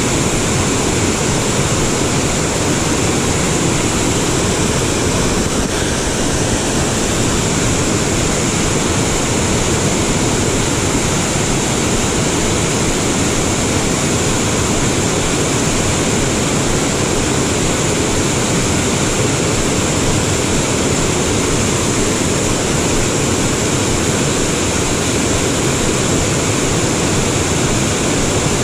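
Small waterfall pouring over a rock ledge into a pool: a steady, unbroken rush of water.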